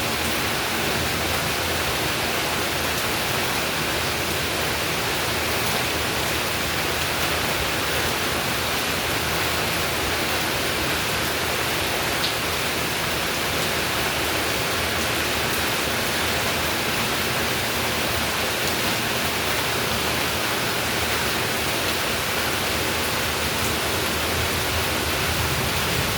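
Steady rain falling, an even unbroken hiss with no change in strength.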